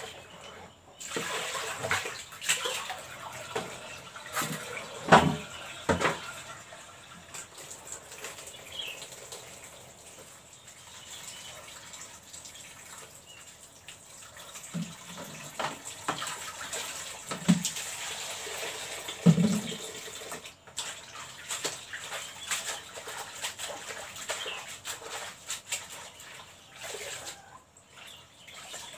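Water splashing and dripping as water spinach is washed and handled by hand, with a few louder knocks or splashes.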